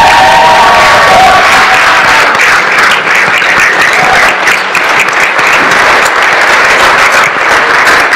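A crowd applauding with steady clapping.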